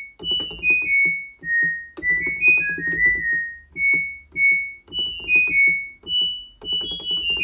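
Background music: a keyboard melody of short, bright notes over a pulsing bass.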